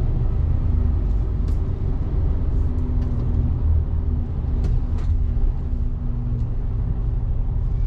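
Semi-truck's diesel engine running steadily as heard from inside the cab while the truck rolls slowly through city traffic, with a few light clicks.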